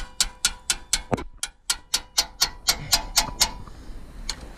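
Ratchet wrench clicking about four times a second as a stubborn bolt that has just broken loose is run out. The clicks break off with a short squeak and a pause a little after a second in, resume, then thin out a bit before the end.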